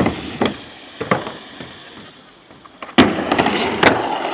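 Skateboard on concrete: several sharp clacks of the board hitting the ground, then a steady rumble of the wheels rolling from about three seconds in.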